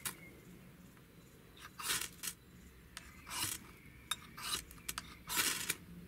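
A ferrocerium rod being struck with the back of a Ganzo multitool's saw blade: a series of short, irregularly spaced metal-on-metal scrapes, each throwing sparks. The user finds the saw back not sharp enough to be a good striker.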